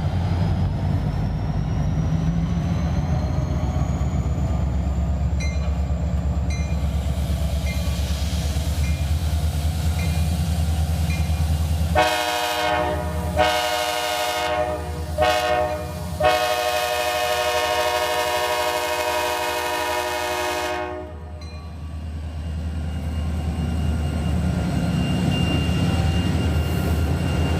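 EMD diesel locomotives (SD40-2s and an SD9) running with a steady low rumble. About twelve seconds in, a locomotive air horn sounds several short blasts, then one long blast of about four and a half seconds, and the engine rumble carries on.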